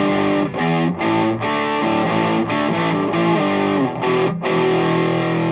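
Electric guitar, a Les Paul with a bridge humbucker, playing a high-gain riff of palm-muted chords through a Bruce Bennett Brown Sound distortion pedal into a simulated Peavey 5150 2x12 cabinet: a 5150-style 'brown sound'. The chords change quickly, break off briefly about four seconds in, then one chord rings out.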